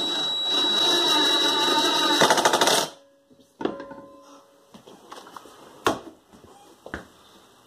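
Cordless driver driving a screw into a wooden wall panel: a steady motor whine that ends in about half a second of fast rattling as the screw seats, then stops about three seconds in. A few sharp knocks and clatters follow.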